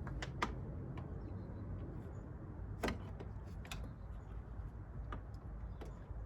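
Scattered sharp metal clicks and taps from a 3/8-inch socket tool on a swivel and long extension being worked onto a bolt, the loudest about three seconds in, over a steady low hum.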